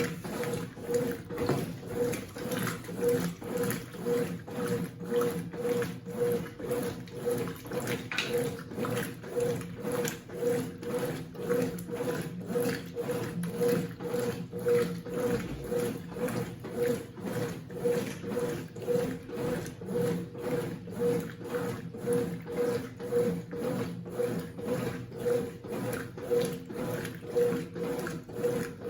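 Consul CWC08 8 kg top-loading washing machine agitating a load in water: the motor hums and the water sloshes in a steady back-and-forth rhythm of about two strokes a second.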